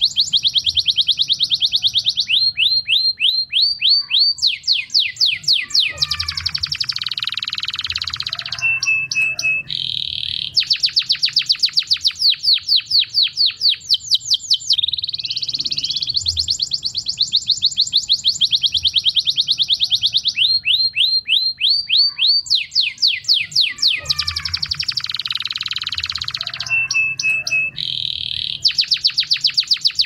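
Male domestic canary, a white crested bird, singing a long unbroken song of rapid trills and rolls: phrases of fast repeated notes, each at its own pace and pitch. The same run of phrases comes round again about halfway through.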